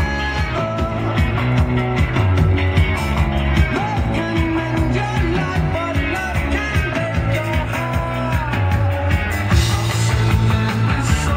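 Rock music with singing, playing steadily.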